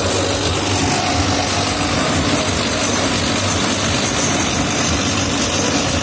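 Sonalika tractor's diesel engine running steadily under load at about 1600–1700 rpm in second low gear, driving a mulcher through straw stubble, with the mulcher's chopping noise mixed in.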